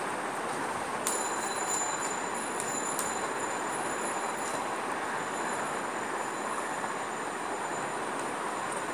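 Steady rushing background noise with no voice, joined about a second in by faint, thin, high whistling tones.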